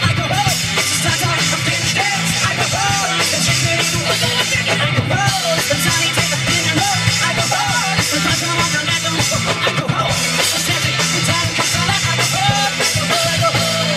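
Live rock band playing fast, hard punk rock: electric guitars, bass and drum kit, without pause.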